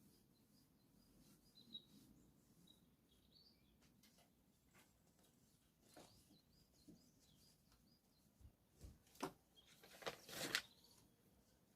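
Near silence, with faint bird chirps in the first few seconds and a few sharp knocks later, the loudest a short cluster of them near the end.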